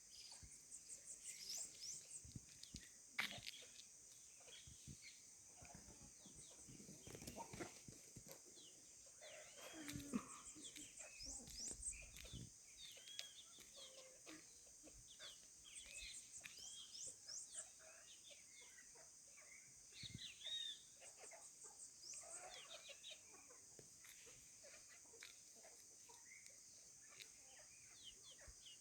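Faint farmyard birdsong: many small birds chirping in short, quick notes, with occasional calls from chickens, over a steady high-pitched drone.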